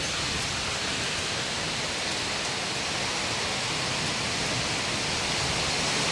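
Heavy downpour in a strong windstorm: a steady, dense hiss of rain that grows slightly louder.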